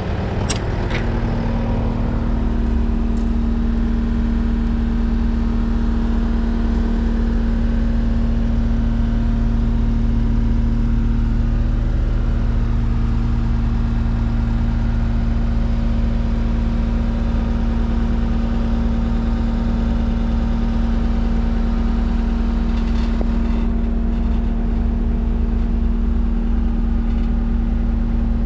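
Diesel engine of a 2015 Case SR210 skid steer running steadily at constant speed, with a few brief clicks about a second in.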